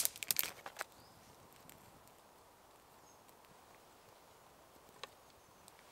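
Small dry twigs cracking and clattering as kindling is laid on a freshly lit grass-tinder fire. A quick run of sharp cracks comes in the first second, followed by a faint hiss and crackle of the small flames and one more tick near the end.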